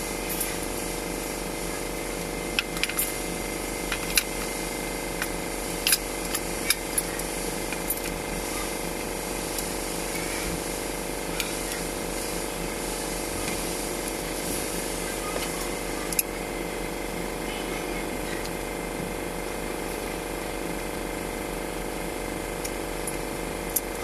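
Scattered sharp clicks and clinks of hand tools on a diesel fuel injection pump's fittings, over a steady background hum.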